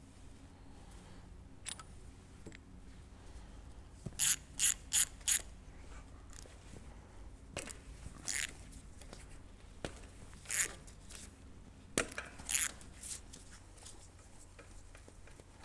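Socket ratchet wrench clicking in short bursts while spark plugs are worked out of an aircraft piston engine. There are four quick bursts about four seconds in, then a few scattered clicks and clinks of the tool.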